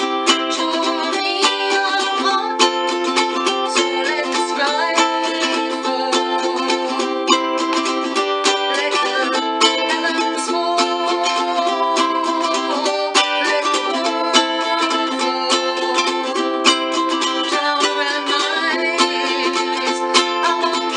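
Ukulele strummed steadily in chords, with a woman singing over it.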